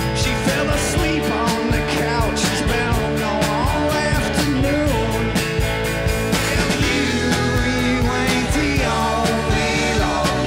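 Live rock band playing: drums on a steady beat under keyboard, guitars and bass, with a lead melody that bends in pitch.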